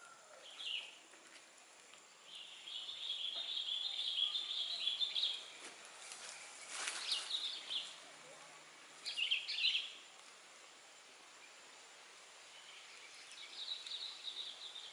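Birds calling in bursts of high chirping: a long run of about three seconds near the start, then shorter calls, with a brief sharp crackle about seven seconds in.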